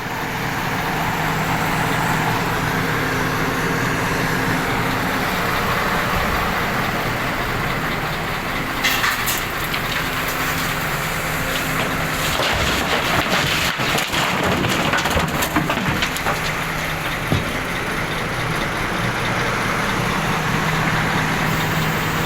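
Dump truck's diesel engine running steadily while excavated soil and stones are tipped into its bed, with a dense run of clattering and knocks in the middle.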